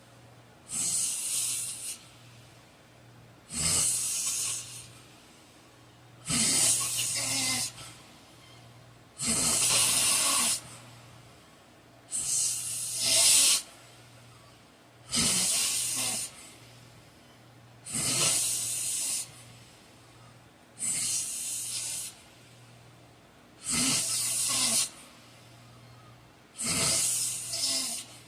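A heavyset man snoring in his sleep: about ten airy, noisy snoring breaths, evenly spaced roughly every three seconds, each lasting about a second.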